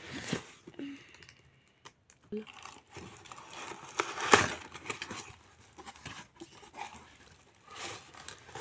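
Cardboard shipping box being torn open by hand: tape and flaps ripped and scraped in irregular tearing strokes with a few sharp clicks, the loudest tear about four seconds in.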